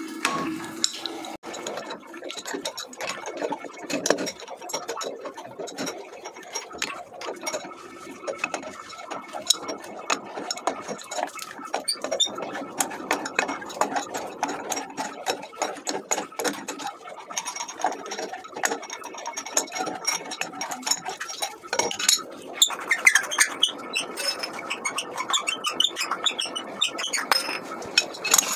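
An adjustable wrench unscrewing an old ESS chrome wall mixer from its wall fittings: repeated small metal clinks and knocks of the wrench against the fittings, with scraping as the nuts turn.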